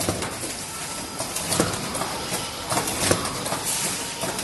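Automatic cartoning machine running, its mechanism making a steady clatter with sharp clicks and knocks scattered through it as it carries and folds cartons.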